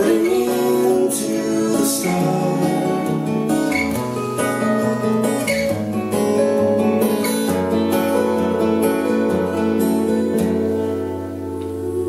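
Two acoustic guitars, a Taylor and a Guild, playing a slow song together: strummed and picked chords with clear pick attacks, settling into a held low note and ringing chords, a little softer near the end.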